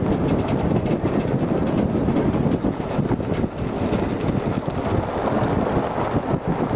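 A Ford vehicle driving over a rough, stony dirt road, with constant jolting and rattling from the tyres and body over the gravel. Wind buffets the microphone held out of the open window.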